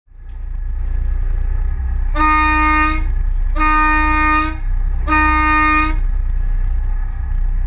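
Tyne-class lifeboat's horn sounding three short blasts, the signal for a vessel going astern, over a steady low rumble of its diesel engines.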